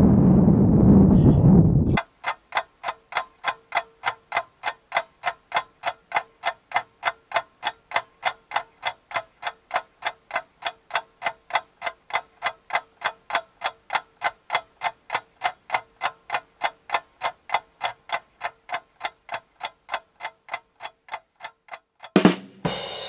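A loud rumbling noise cuts off abruptly about two seconds in. It gives way to background music: a steady, evenly spaced ticking percussion beat at about three ticks a second, then a cymbal crash near the end as the track kicks in.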